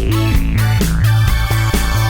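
Upbeat background music with a steady bass beat and guitar.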